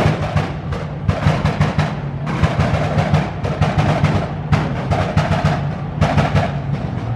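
Car engine held at high revs during a burnout, bouncing off the rev limiter in rapid stuttering cracks that come in bunches about a second apart over a steady low engine tone.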